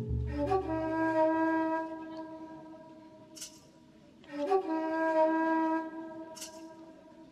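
Slow instrumental music: a wind instrument holds two long notes, each sliding up into pitch at its start, about half a second and four and a half seconds in, then fading away. A short high shimmer follows each note.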